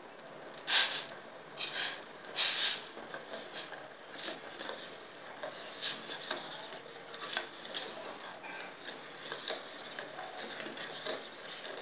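Steel spoon stirring and scraping undissolved sugar against the bottom of a stainless steel bowl of water, the first stage of making sugar syrup. Three strong gritty scrapes come in the first few seconds, followed by lighter scrapes and clinks of the spoon on the bowl.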